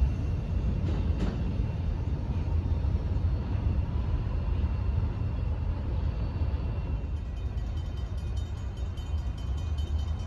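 Freight train's cars rolling away along the track, a steady low rumble.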